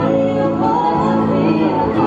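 A song with singing over sustained instrumental chords.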